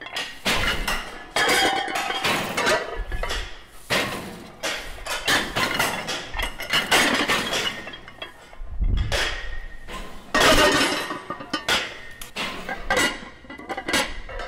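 Dense, irregular metallic clanking and clinking, like many hard knocks in quick succession.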